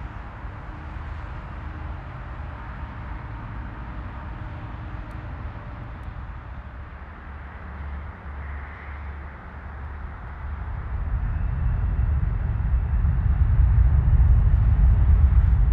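Airliner engines on the airfield: a steady low rumble that grows clearly louder about two-thirds of the way through.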